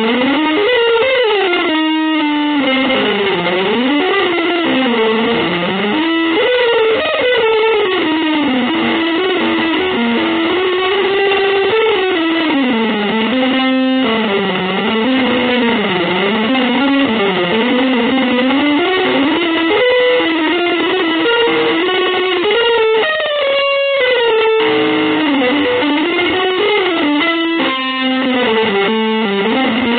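Instrumental music: an electric guitar through effects plays a winding line that glides up and down over sustained held tones, with a few brief breaks.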